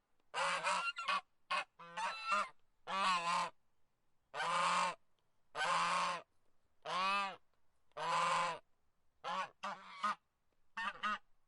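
Goose honking: a series of calls, some short and quick together, others longer drawn-out honks, with short pauses between.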